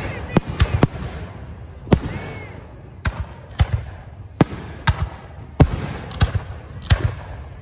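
Aerial fireworks shells bursting in a rapid, irregular run of sharp bangs, about fifteen, some coming in quick pairs and triples, with a low rumble between them.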